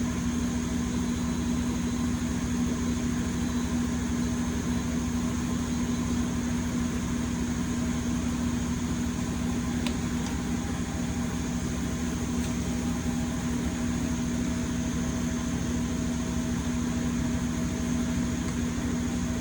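Steady hum of a CNC milling machine standing at rest with its motors, pumps and fans running, carrying a strong low tone and a faint high whine. Two faint clicks come about halfway through.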